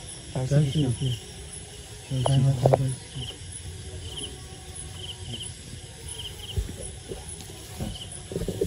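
Crickets chirping steadily, a short trill of two or three pulses about once a second. A man's voice is heard briefly twice, near the start and about two seconds in.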